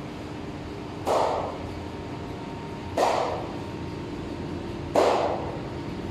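A seal slapping its own side with a flipper underwater, heard through the aquarium glass: three sharp slaps about two seconds apart, over a steady low hum.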